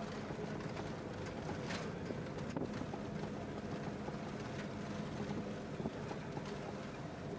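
Steady engine hum and road noise heard from inside a moving bus, with air rushing in at the side window.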